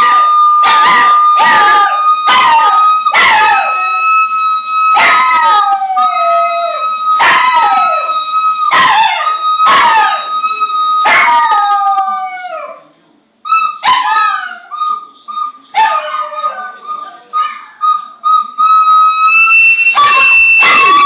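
A plastic recorder holds one high note while a small dog howls along in short, falling yowls, more than one a second. About two-thirds of the way through, the recorder breaks off briefly, then resumes in broken notes with the dog still howling, and jumps to a higher note near the end.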